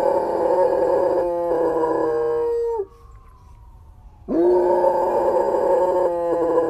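German Shepherd howling with its head thrown back, set off by a nearby fire station's siren: two long howls, the first ending about three seconds in and the second starting about a second and a half later.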